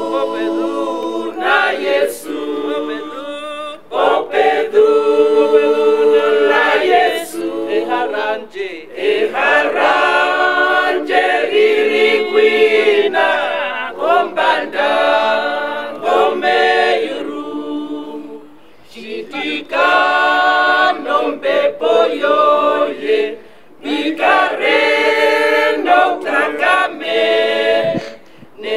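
A small group of men and women singing a hymn unaccompanied, in long phrases with short pauses for breath between them.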